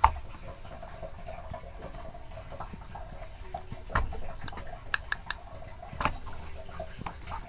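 A sharp click as a toggle switch is flipped, then a homemade belt-driven piston oil pump on a mini lathe running with a faint steady hum and irregular light ticks.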